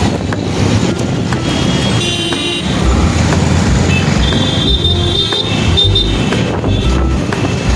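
Road traffic running past, with vehicle horns honking about two seconds in and again near the middle.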